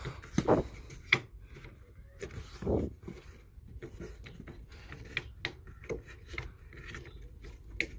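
Hands working at the underside of a car hood: scattered clicks and light knocks with rubbing between them, and a few louder thumps in the first three seconds.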